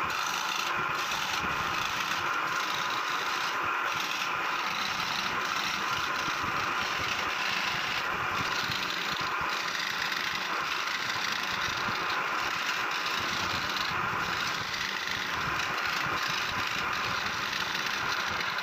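A steady mechanical running noise at an even level, with a few faint, short scrapes of a steel chisel cutting into wood.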